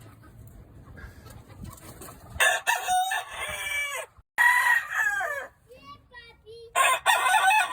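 Gamefowl roosters crowing, several long crows one after another and overlapping, starting about two and a half seconds in after a quiet start.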